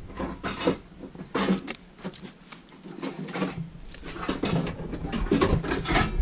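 Foam wrapping sheet rustling, with scattered light knocks and clicks as glass bottles wrapped in foam are packed into a storage locker among tins.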